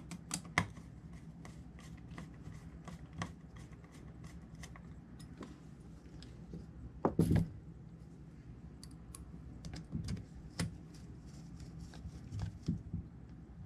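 Small clicks and ticks of hex drivers and screws on a carbon-fibre quadcopter frame as its top plate is screwed down, with a louder knock about seven seconds in. A steady low hum runs underneath.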